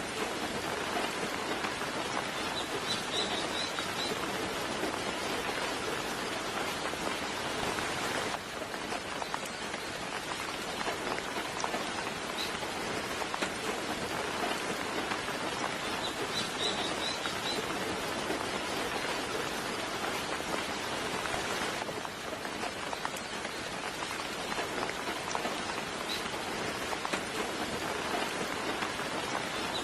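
Steady soft rain falling, an even hiss of many drops. A small bird chirps in short high runs about three seconds in and again about sixteen seconds in.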